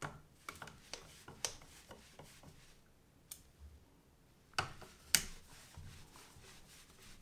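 Phillips screwdriver turning the mounting screws of a rubber recoil pad on a wooden rifle buttstock: a run of light clicks and scrapes, with two sharper clicks about four and a half and five seconds in.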